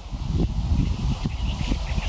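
Gusty wind buffeting the microphone, with birds chirping over it.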